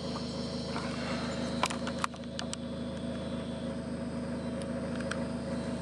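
Mazda Miata's engine idling steadily, with a few light clicks at about two seconds in and again near the end.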